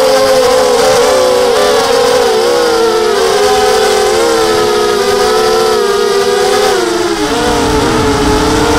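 FPV miniquad's brushless motors and propellers whining in flight, heard close from the onboard camera, with several pitches weaving around each other as the throttle shifts. Near the end the pitch drops and a rush of wind comes up.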